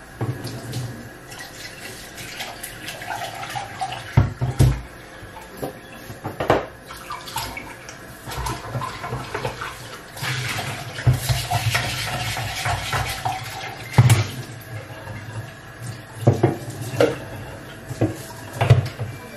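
Kitchen tap running into the sink while an orchid pot is scrubbed with a brush and rinsed under it, with several sharp knocks of pots against the sink.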